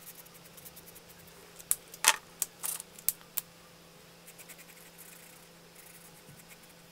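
Felt-tip sketch marker scratching on sketchbook paper in quick short strokes, as hair is being coloured in, with a cluster of several sharp, much louder clicks and taps about two to three seconds in.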